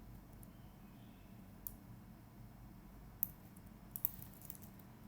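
Computer keyboard keys clicking sparsely: a single keystroke, another a moment later, then a quick run of keystrokes around four seconds in, over a faint steady low hum.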